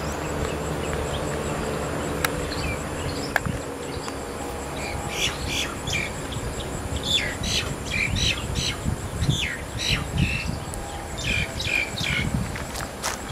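Birds chirping in quick series of short calls, starting about five seconds in, over a low uneven rumble and a faint thin high steady tone.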